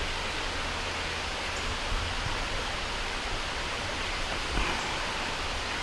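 Steady, even rushing hiss of outdoor background noise, with no clear birdsong standing out.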